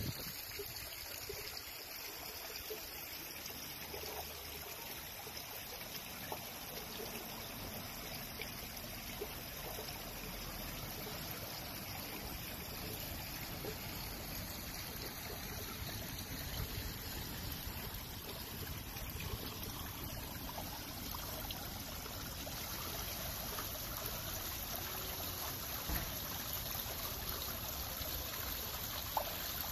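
Water running and trickling steadily, as from a garden fountain or small stream.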